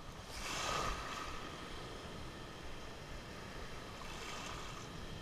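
Small sea waves washing and breaking in the surf, with wind on the microphone. There is a louder wash near the start and a softer one about four seconds in.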